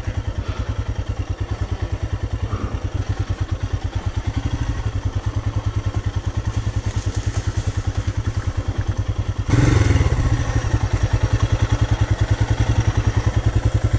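2018 Royal Enfield Himalayan's 411 cc single-cylinder engine running with a steady, rapid low thump, which gets louder about two-thirds of the way through.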